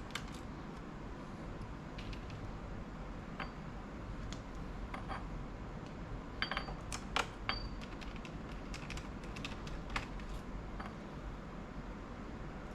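Scattered small clicks and light metallic clinks of a screwdriver and small screws being worked out of a laptop's case, a few of them ringing briefly, with a cluster of clinks about midway.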